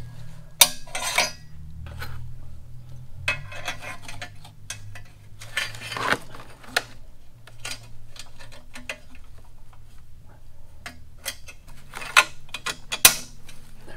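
Light metal clinks and scraping as a steel exhaust flange and its retaining clip are wiggled and pressed onto a Harley header pipe by hand. The sharpest clinks come about half a second in and twice near the end.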